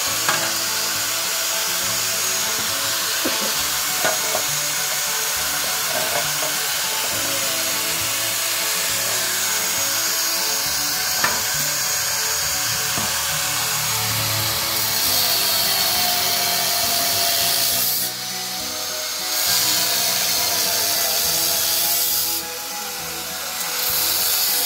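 Handheld angle grinder cutting through the metal of a motorcycle fuel tank, a steady grinding noise that eases off briefly twice near the end.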